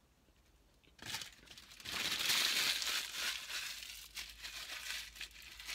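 Paper napkin crinkling and being crumpled in the hand, starting about a second in, loudest in the middle and trailing off into scattered crackles.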